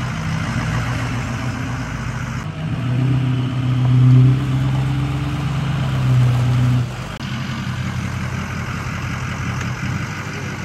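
Diesel pickup truck engine running at idle. From about two and a half seconds in it turns abruptly to a louder, deeper hum that swells twice, then drops back to the steady idle sound at about seven seconds.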